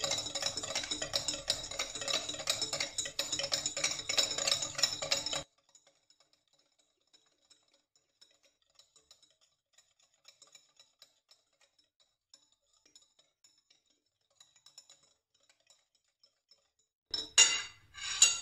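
A metal hand-mixer beater, used as a whisk, clinking rapidly against a glass bowl as it beats eggs, with the bowl ringing. After about five seconds the clinking suddenly drops to faint scattered ticks, and two louder clinks come near the end.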